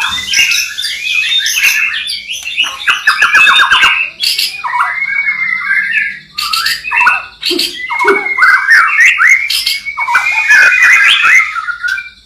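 White-rumped shama (murai batu) singing a loud, varied song of quick whistled phrases and rapid trills, with brief pauses about four and six seconds in.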